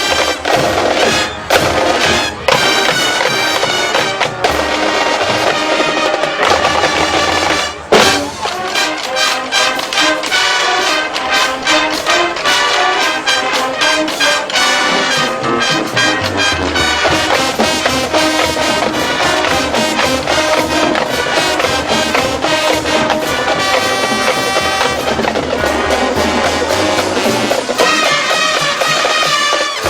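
Marching band playing: brass section with drums and percussion, with a sharp full-band hit about eight seconds in.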